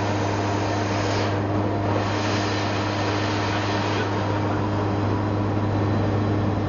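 Cockpit noise of a military transport plane in flight: a steady low engine and propeller hum with a fainter higher tone over a constant rush of air, unchanging throughout.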